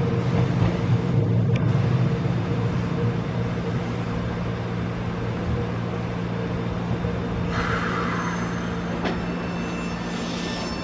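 Nankai 6000 series stainless-steel electric train running away along the line: a steady low hum and rumble, with a rush of higher hiss about eight seconds in.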